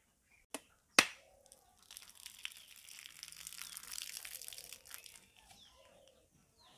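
Two sharp cracks about half a second apart as a heavy knife strikes a husked coconut to split its shell, the second much louder. Then about three seconds of crackly, hissing rustle.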